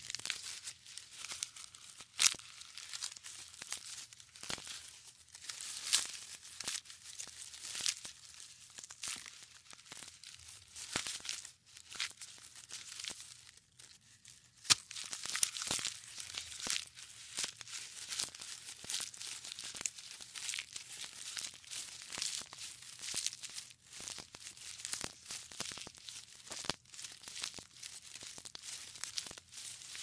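Giraffe eating: dense, irregular crunching and tearing sounds of chewing and pulling at food, with a brief quieter spell a little before halfway.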